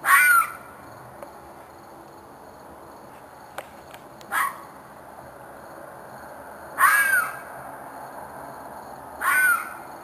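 An animal's loud, harsh scream repeated four times, each cry about half a second long with a rise-and-fall in pitch. The second one, around four and a half seconds in, is shorter and quieter. It is a night cry that the recordist took for an animal in distress, maybe a coyote.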